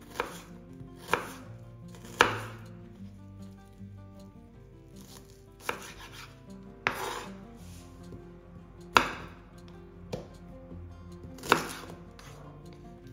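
Knife slicing shallots on a bamboo cutting board: separate sharp chops of the blade hitting the board, irregularly spaced about a second or more apart, with soft background music underneath.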